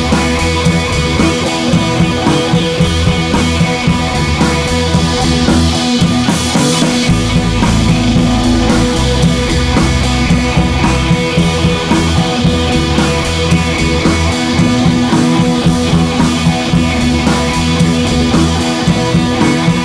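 Background rock music with guitar and drums over a steady beat.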